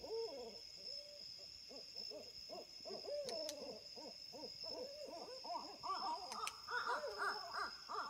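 Several barred owls caterwauling together: a rapid, overlapping string of rising-and-falling hoots and cackles that grows busier and higher-pitched in the last couple of seconds. This group call is the kind the uploader tags as owls mating.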